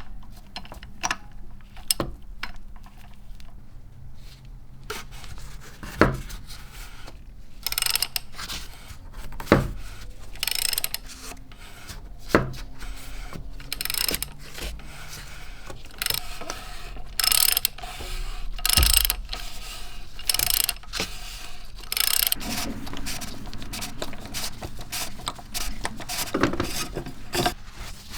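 Hand tools and metal parts being worked: scattered sharp clicks and knocks with short, irregular rasping strokes.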